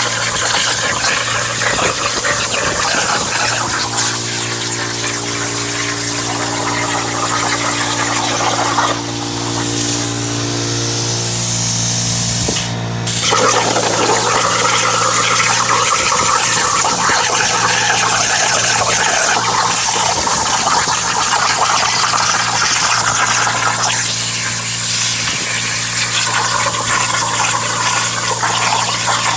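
Hypertherm Powermax45 XP plasma torch cutting steel on a CNC plasma table: a loud steady hiss over a constant hum. About nine seconds in the hiss drops away for a few seconds, leaving steady whining tones, then a sharp crack and the hiss starts again.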